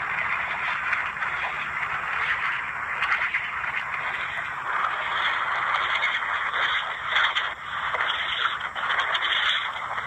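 Recording of a passing freight train played back through a small cell phone's speaker: a steady, harsh noise with almost no bass.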